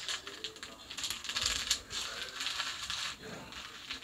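Clothing being handled and carried about: fabric rustling with light clinks and knocks.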